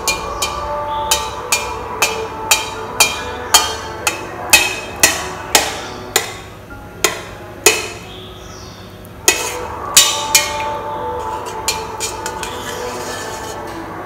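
Knife blade knocking against the bottom of a stainless steel bowl as it cuts through set pig's blood: sharp clinks about two a second, a pause about eight seconds in, then a few more.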